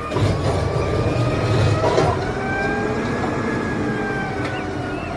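Automated side-loader garbage truck running with a hydraulic whine as its arm lifts a trash cart, the whine rising a little in pitch and falling again, with a clunk about two seconds in.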